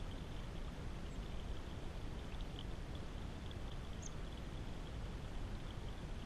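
A small stream of water trickling and splashing over rocks, a steady babble with bright little droplet ticks. A single brief, high bird note about four seconds in.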